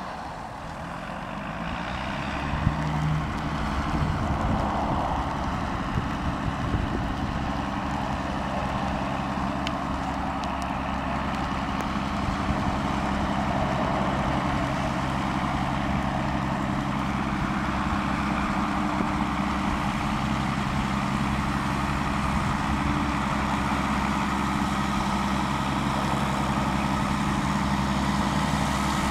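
Massey Ferguson 8220 tractor's diesel engine running steadily while pulling a slurry tanker, growing louder over the first few seconds as it comes closer.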